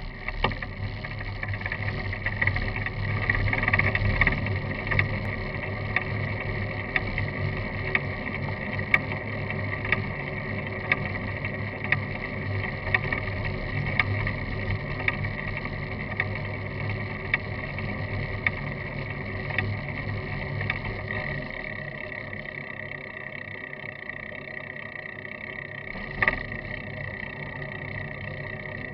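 Wind and road noise from a camera mounted low on a moving road bicycle: a steady rush with tyre rumble on the asphalt and light ticks about once a second. The low rumble eases about two-thirds of the way through, and there is a sharper knock shortly before the end.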